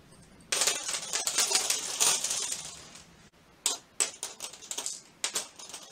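Wooden cocktail sticks dropped by the handful onto a sheet of paper, clattering as they land: a dense rattle of many small clicks for about two and a half seconds, then a few single clicks as more sticks fall.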